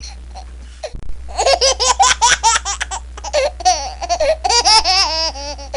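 A baby laughing in a quick string of high-pitched giggles, starting about a second in after a quiet opening, over a steady low hum.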